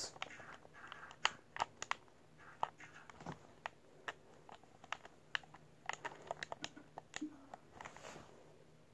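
Light, irregular clicks and taps of hands handling the phone and small objects close to its microphone.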